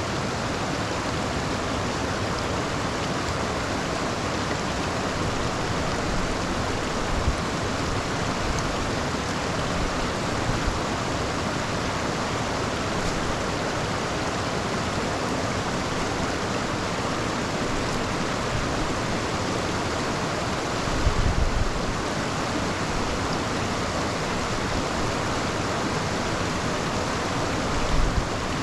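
Steady rush of storm runoff water draining through a street drain grate in the rain. A few dull low thumps break through, the longest about two-thirds of the way in.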